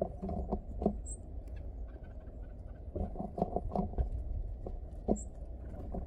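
Birds pecking at seed on a snow-covered wooden feeder table: irregular clusters of light taps, with two brief high chirps, over a steady low rumble.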